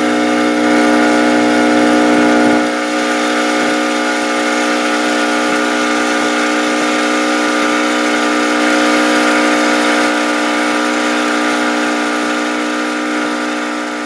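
Boat motor running at a constant speed, a steady, unchanging drone over a rushing noise.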